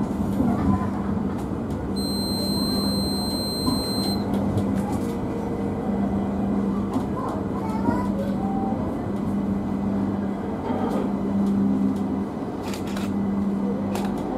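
LRT Jabodebek light-rail train running along its elevated track, heard from inside the front cab: steady running noise with a constant low hum. About two seconds in, a high, thin steady tone sounds for about two seconds.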